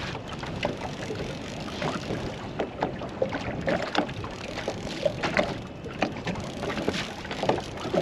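Choppy water slapping against the hull of a small open boat: irregular splashes and knocks over a steady rush of wind on the microphone.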